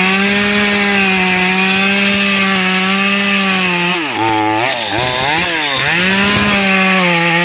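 Top-handle two-stroke chainsaw running at high revs as it saws into teak tree roots, a steady high engine note. About halfway through, the pitch drops and picks up again a few times before settling back to full speed.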